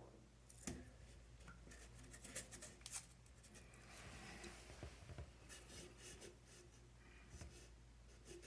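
Faint rustling and a few scattered light clicks of adhesive tape being handled and pressed onto the underside of a faucet spout.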